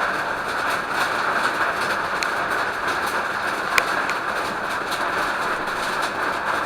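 Steady rush of heavy rain and running water, even and unbroken, with a couple of faint sharp clicks.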